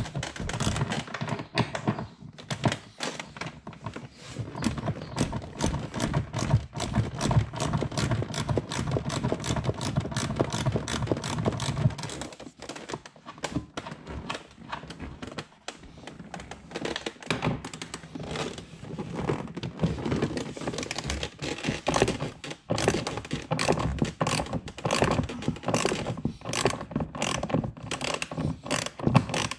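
Socket ratchet clicking rapidly as the 15 mm seat-rail nuts are spun off, with small metal knocks of the tool and nuts. A low hum sits under the first twelve seconds or so.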